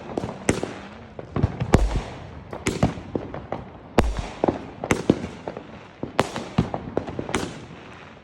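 Fireworks going off: a rapid string of sharp bangs and pops with echoing tails, and heavier deep booms about every two seconds.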